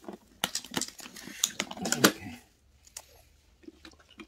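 Red snow crab shell being broken and picked apart by hand: a quick run of sharp cracks and clicks of hard shell in the first two seconds, then a few scattered clicks.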